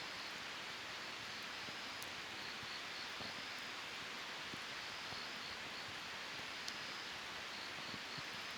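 Wood campfire burning with a steady hiss and a few sharp crackling pops, the clearest about two seconds in and again near seven seconds.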